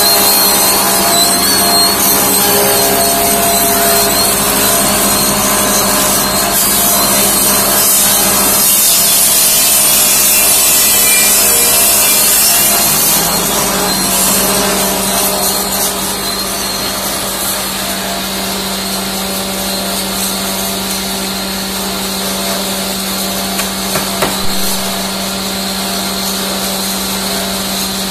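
Motor-driven bamboo satay-skewer machine running, a steady hum under a noisy rasp of bamboo being cut and shaped. It is a little quieter from about halfway through.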